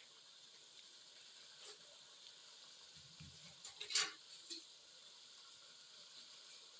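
Chicken, peas and tomato masala frying in oil in a pan, a faint steady sizzle as it is stirred, with a few sharp clicks near the middle, the loudest about four seconds in.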